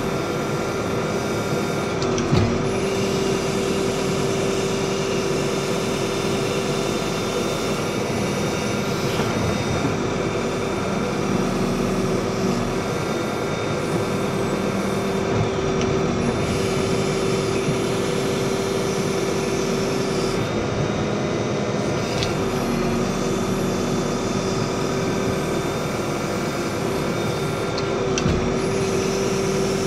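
Randon backhoe loader's diesel engine running under load as the backhoe arm digs, with a steady droning tone that breaks off briefly several times. A few knocks from the boom and bucket come every several seconds.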